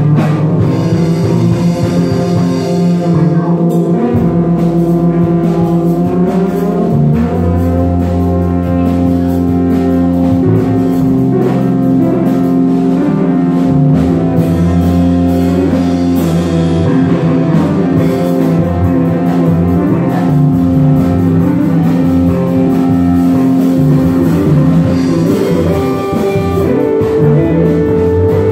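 Live rock band playing: drum kit, keyboards and guitar over long held low notes.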